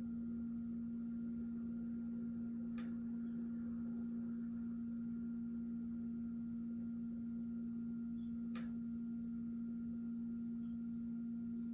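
A steady electrical hum at one low pitch, with two faint clicks, about three seconds and eight and a half seconds in.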